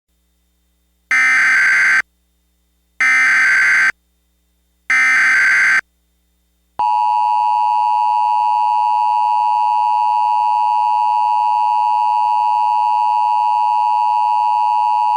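Emergency Alert System SAME header: three short bursts of digital data tone about a second apart, then the steady two-tone EAS attention signal starting about seven seconds in. Together they announce an incoming emergency alert ahead of its spoken message.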